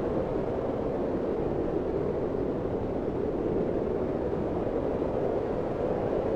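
Steady blizzard wind: a continuous low rushing noise with no distinct gusts or breaks.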